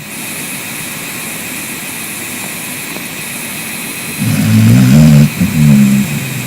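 A sleeping pet snoring: a loud, low snore about four seconds in, breaking briefly and going on for a second, shorter part, over a steady background hiss.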